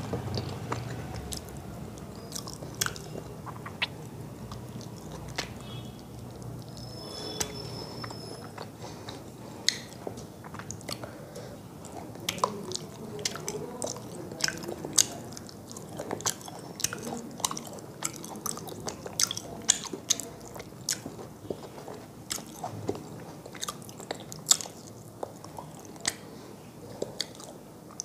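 Close-up chewing of pomfret fish curry eaten by hand, with many short, sharp clicks and smacks scattered throughout.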